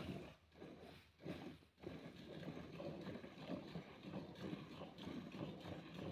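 Milk squirting in rhythmic streams into a metal bucket as a cow is milked by hand, with a few louder squirts in the first two seconds and a steady run of strokes after.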